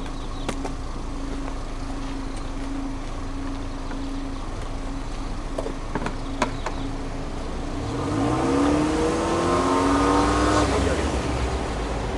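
Subaru Legacy Touring Wagon 2.0GT's EJ20 turbocharged flat-four heard at the exhaust, idling steadily with a few sharp clicks. About eight seconds in it is revved in neutral, the pitch climbing for a couple of seconds and then dropping back toward idle.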